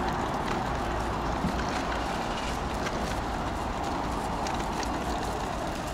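Steady city street noise from road traffic, with a few faint ticks.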